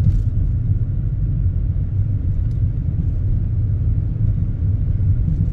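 Steady low rumble of a car being driven, heard from inside the cabin.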